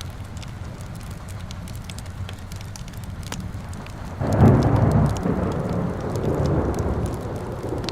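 Fireplace crackling over steady rain, then a loud roll of thunder breaks in about halfway through and rumbles on, slowly fading.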